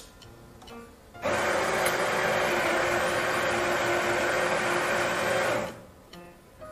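Electric espresso coffee grinder grinding a 12-gram dose of beans, with a steady motor hum under the grinding. It starts about a second in, runs steadily for about four and a half seconds, then stops.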